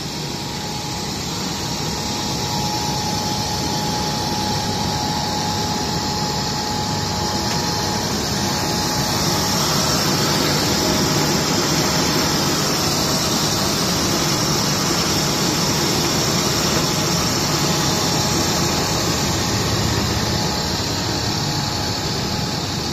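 Pet-feed pellet production machinery running: a steady mechanical drone from the extruder and conveyor line, with a thin steady whine through the first half.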